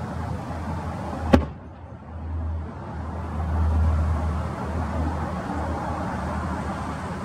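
A single sharp bang from an aerial firework shell bursting about a second in, followed by a low, steady rumble.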